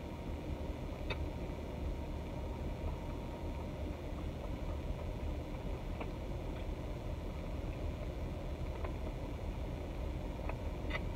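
Steady low rumble of a car idling, heard from inside the cabin, with a few faint small clicks of chewing and mouth sounds from eating chicken wings.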